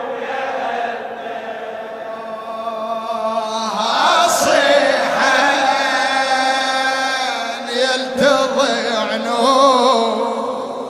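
Vocal chant of an Arabic religious nasheed: voices holding long, wavering notes, growing louder about four seconds in.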